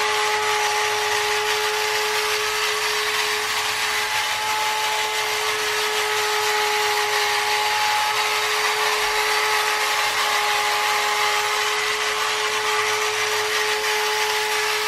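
Battery-operated tin toy space robot car running across a hard floor: its small electric motor and gearing whir with a steady, even-pitched whine.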